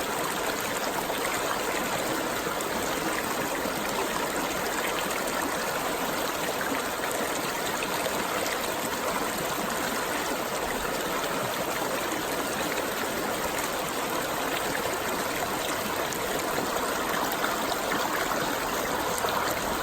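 Running water flowing steadily, an even, unbroken rushing and splashing.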